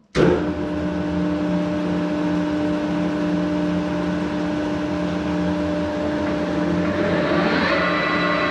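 Electric machine tool running, cutting in suddenly at the start with a steady hum and whine. A higher whine joins about seven seconds in.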